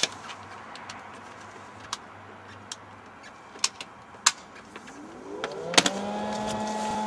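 A few sharp plastic clicks and knocks as an electric car's charging lead and plug are handled and connected, the loudest near the end. Then the charger comes on: a hum rising in pitch for about a second and settling into a steady whir, the sign that charging has started.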